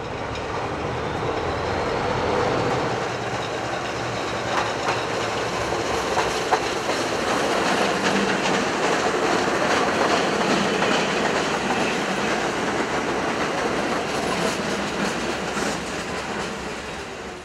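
Subway train running on the tracks: a steady rumble with wheel clatter and a few sharp clicks, building over the first couple of seconds.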